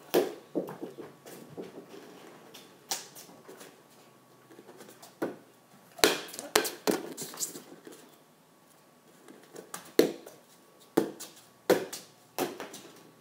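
Flat plastic soccer ball being kicked and bouncing on a hard floor: a string of sharp, irregular smacks, a few close together, with quieter gaps between the tries.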